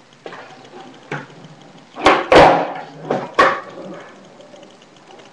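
Skateboard on concrete: a few light knocks, then a cluster of sharp clacks of the board striking the ground about two to three and a half seconds in, the loudest near the middle, with wheels rolling between.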